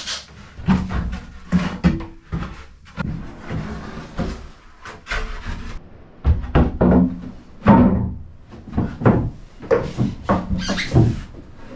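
Plywood floor panels of a boat's cabin sole being lifted out and set down: irregular wooden knocks, thuds and short scrapes against the floor beams.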